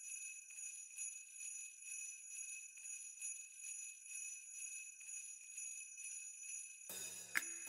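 Sleigh bells jingling in a steady, even shaking rhythm at the start of a Christmas song. Near the end, bass and drum beats come in.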